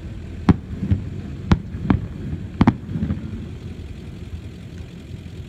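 Aerial fireworks shells bursting: about six sharp bangs in the first three seconds, some in quick pairs, over a low rumble.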